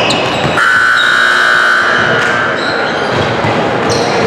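Gymnasium scoreboard buzzer sounding once for about a second and a half. Basketballs bounce on the court around it.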